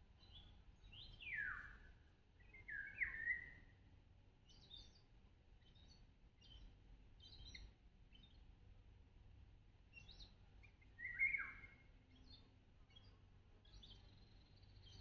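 Birds calling and chirping: three louder calls that sweep quickly down in pitch, about a second and a half in, at three seconds and near eleven seconds, among many short, high chirps.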